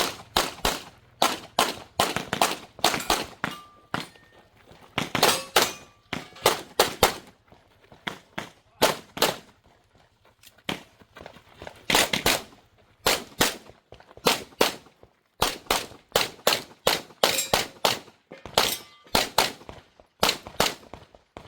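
Rapid pistol fire, dozens of sharp shots in fast strings broken by short pauses, from a SIG P320-type 9 mm pistol run through a competition stage.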